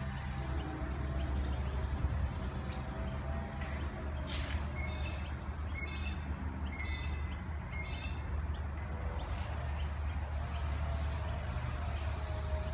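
Small birds chirping, a run of short high repeated notes in the middle stretch, over a steady low rumble.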